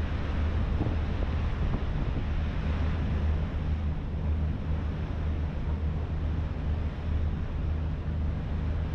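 Harbour ferry's engine running under way with a steady low drone, with wind buffeting the microphone and water rushing along the hull.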